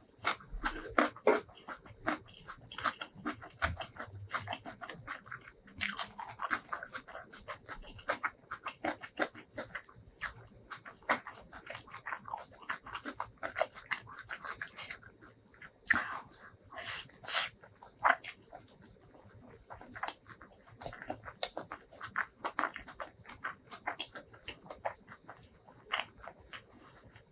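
Close-miked ASMR eating sounds: a person chewing rice and a curried boiled egg, with many short, wet mouth clicks and smacks. There are a few denser, noisier stretches about six seconds in and again around sixteen to seventeen seconds.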